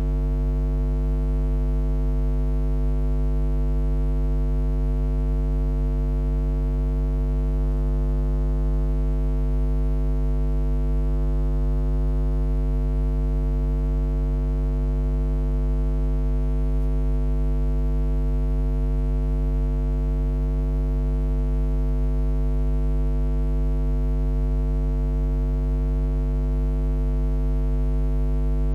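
Loud, steady electrical mains hum with a buzzy stack of overtones, unchanging throughout. It is the kind of ground-loop hum picked up by a microphone or PA audio feed.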